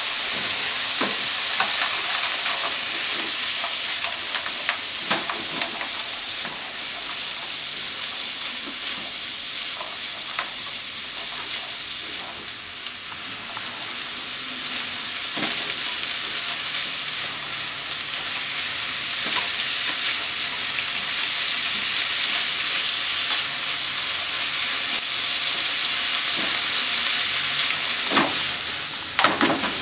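Diced chicken, onion and corn sizzling steadily in a frying pan while being stir-fried, with scattered taps and scrapes of wooden utensils against the pan and a brief flurry of knocks near the end.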